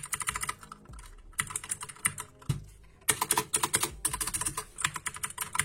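Magic Refiner MK22 mechanical keyboard with clicky blue switches being typed on: rapid runs of sharp key clicks in three stretches, with brief pauses about a second in and near three seconds in.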